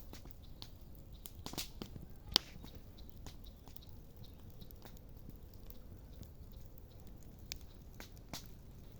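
Wood campfire crackling, with a handful of sharp pops scattered through, the loudest about two and a half seconds in.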